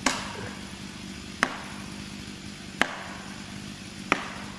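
A maul striking a felling wedge four times at an even pace, about one blow every second and a half, each a sharp crack with a short ring. The wedge is being driven into the cut to tip the partly cut tree.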